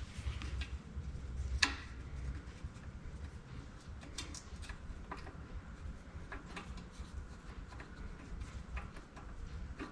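Scattered light metallic clicks and taps of a bolt being worked by hand to start its thread in a tight spot, with one sharper click about one and a half seconds in.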